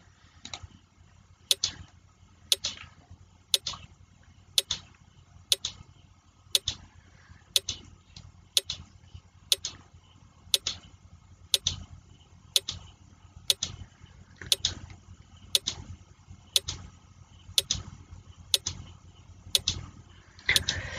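Countdown timer sound effect ticking like a clock, about one sharp tick a second, marking the 20-second answer time for a quiz question.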